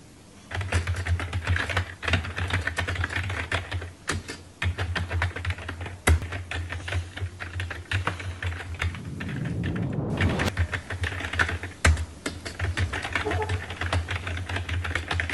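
Fast typing on a computer keyboard: a quick, uneven run of key clicks that keeps going with only brief pauses.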